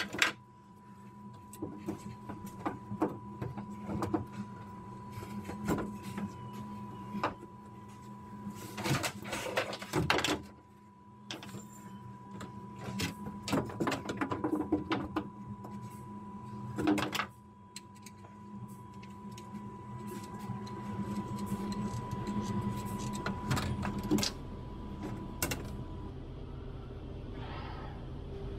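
Scattered knocks and clicks of thin wooden template strips being handled and fitted together, over a steady hum with a faint high steady tone that stops shortly before the end.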